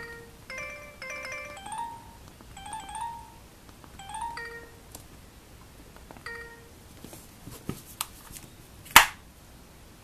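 Kyocera DuraXT flip phone playing a preloaded electronic ringtone: short chiming chords, then a repeated rising phrase that stops about halfway through. A single short tone follows, then a few light clicks, and near the end a sharp snap as the flip is shut.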